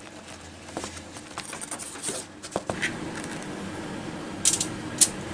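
Metal spoon scraping and clinking as ground deer meat is pushed off a plate into a steel bowl, then crisp clicks and crackles from hard taco shells being set down on a foil-lined baking tray, the two loudest about four and a half and five seconds in.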